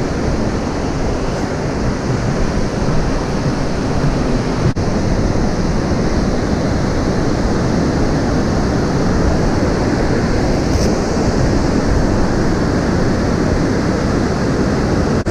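Steady roar of a waterfall in torrent, swollen after heavy rain.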